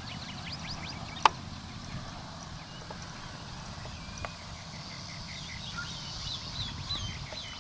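Outdoor ambience: quick, high chirping calls repeat throughout over a low steady rumble, with one sharp click about a second in.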